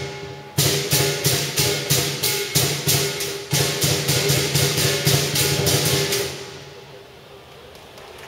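Lion dance percussion: big drum, clashing cymbals and gong playing a fast, even beat, with short breaks just after the start and again about three and a half seconds in. The playing stops about six seconds in.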